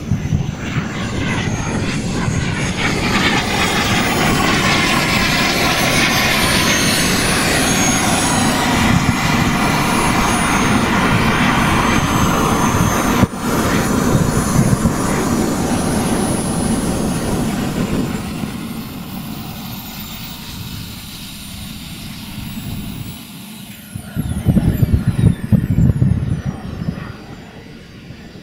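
Twin Kingtech K210 gas turbines of a giant-scale RC F-14 Tomcat on a flypast: a loud jet roar with a high turbine whine that swells, then fades and drops in pitch as the jet moves away. The sound breaks off for an instant about halfway through. Near the end comes a short burst of low rumble.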